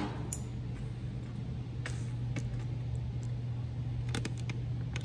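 A steady low hum with a few light clicks, like a tool being handled; the die grinder is not running.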